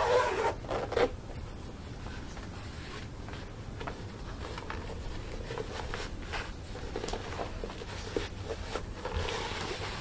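Black faux leather thigh-high platform boot being pulled onto a socked foot and leg, giving a run of rustling, scraping and zip-rattling sounds. Louder knocks and rustles come in the first second.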